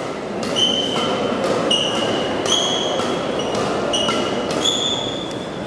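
Badminton shoes squeaking on the court mat as two players rally: a string of short, high squeals, about six or seven, with sharp racket hits on the shuttlecock among them. A crowd murmurs underneath.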